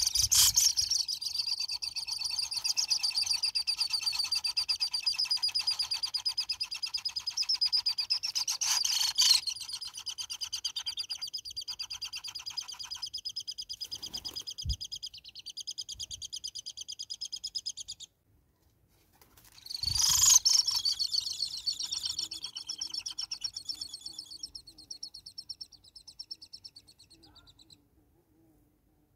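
Hornbill calling at the nest hole: a fast, pulsing, high-pitched chatter that starts abruptly and runs on, breaks off, then starts again loudly and fades away near the end. A single dull knock comes about halfway through.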